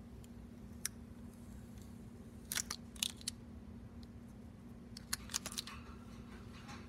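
Short crackles and clicks from fingers rubbing down and peeling the transfer tape off a vinyl decal on the back of a phone, in small clusters about two and a half seconds and five seconds in, over a low steady hum.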